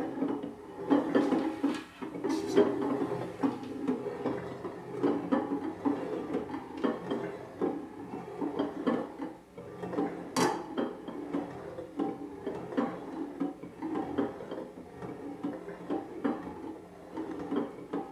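Glass and stainless-steel pot lids spinning and wobbling on their rims on a wooden tabletop, a continuous rolling rattle with occasional sharp clinks, the loudest about ten seconds in.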